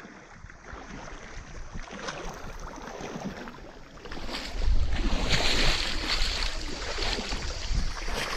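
Water splashing and lapping around a canoe. About halfway through, wind buffets the microphone and the sound grows louder.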